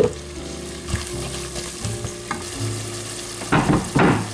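Diced carrots and onions sizzling in melted butter in a pot. There is a sharp knock at the start and a short louder clatter of stirring near the end.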